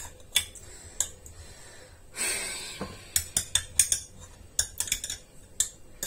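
Green olives picked by hand from a glass jar and dropped one by one into a ceramic bowl: irregular small clicks and clacks of olives on the bowl and fingers against the jar, bunched together near the middle. A short breathy hiss comes about two seconds in.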